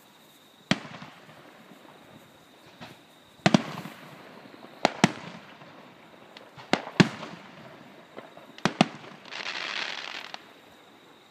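Aerial firework shells bursting: a series of sharp bangs, several in quick pairs, each trailing off in a rumble and crackle. About nine seconds in comes a second-long burst of dense crackling hiss.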